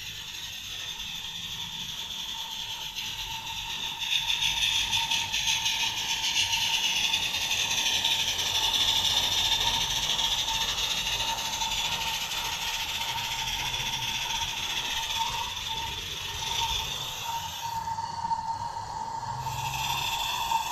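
Märklin BR 89 gas-fired live-steam model locomotive running with its train: a fast, fine mechanical rattle with hiss over a steady high tone. It gets louder about four seconds in as the engine comes close, then eases.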